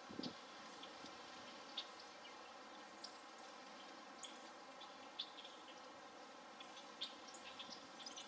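Faint outdoor ambience: a steady low hiss with scattered short, high chirps and ticks, and a soft low thump right at the start.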